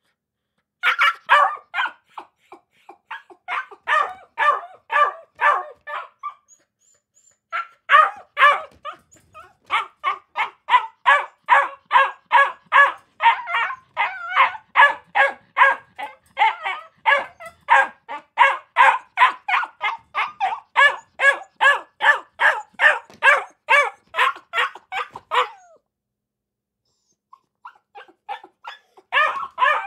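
A dog barking in quick, steady runs of short barks, about three a second, with a pause about six seconds in and another near the end.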